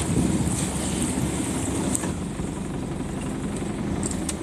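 Motorboat engine running steadily at low speed, a low rumble. A short sharp click comes about two seconds in and another near the end.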